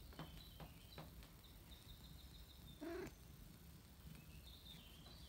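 A cat gives one short meow about three seconds in. Faint high chirps, like birds on the TV, and a few light clicks sound around it.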